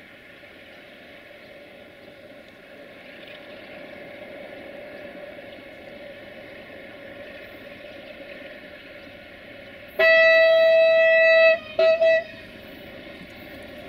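Horn of a 060-DA (LDE2100) diesel-electric freight locomotive: one long blast about ten seconds in, followed quickly by two short toots. Underneath, the steady running sound of the approaching locomotive and its train of tank wagons grows slightly louder.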